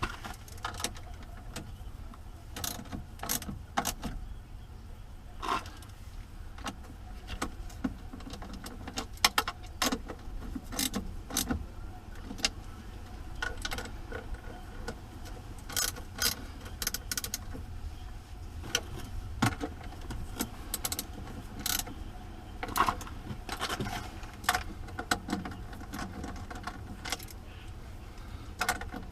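Irregular metal clicks, clinks and scrapes of hand tools working on battery terminals, over a steady low rumble.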